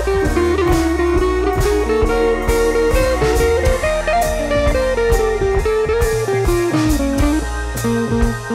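Background music: a bluesy electric guitar melody over bass and a steady drum beat.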